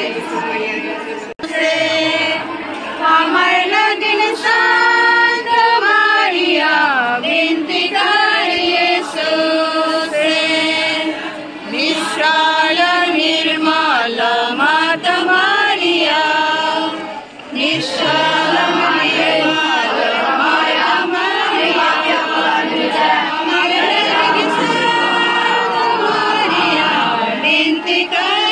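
A choir of voices singing a devotional hymn in held, gliding melodic lines, with a brief break about two-thirds of the way through.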